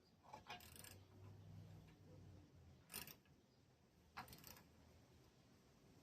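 Faint clicks and clinks of hand tools and small metal engine parts being handled, with three short knocks spread across the few seconds.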